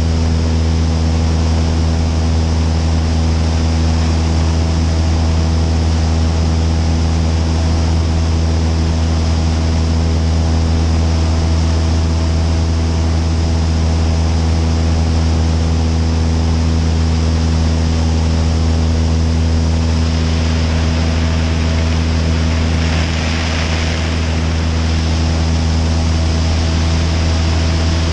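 Cessna 172 Skyhawk's piston engine and propeller running steadily in flight, heard from outside under the wing with wind rushing over the microphone. The level dips slightly and the hiss swells for a moment a little over twenty seconds in.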